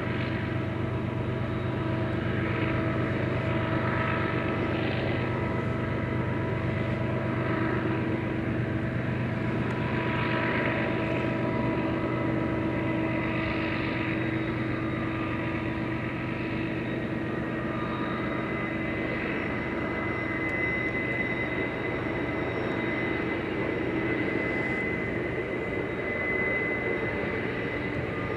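Freight train of tank cars grinding slowly uphill on a curve: a steady low rumble with long, steady squealing tones from the wheels. A high squeal grows stronger about two-thirds of the way through.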